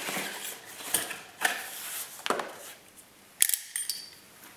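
Cardboard box being opened by hand: the lid flap lifted and the cardboard rustling and scraping, with several sharp clicks and knocks, the loudest about three and a half seconds in.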